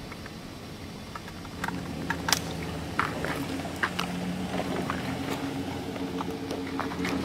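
Footsteps on sandy ground littered with spent shotgun shells, with scattered sharp clicks and taps. A low, steady motor hum grows stronger about four seconds in.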